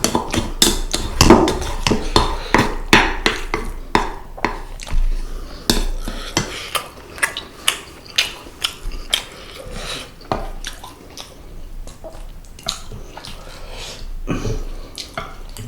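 Close-up eating sounds: utensils clicking and scraping against a dish and wet chewing and smacking of seasoned fish, many sharp clicks that come thick in the first half and thin out later.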